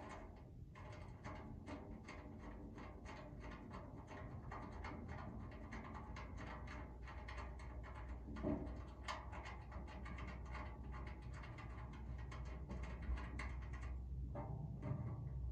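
A bolt being screwed in and a lock nut tightened inside a metal under-step storage box, making a rapid, irregular run of light metallic clicks and scrapes over a low steady rumble.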